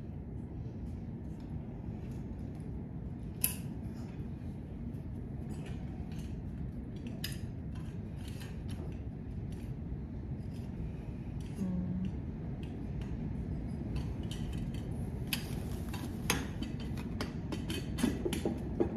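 Scattered light clicks and clinks of the pipes and plastic fittings of a swing-down toddler bed rail being handled and pushed together, with a sharper click about three and a half seconds in and a cluster of clicks near the end, over a steady low hum.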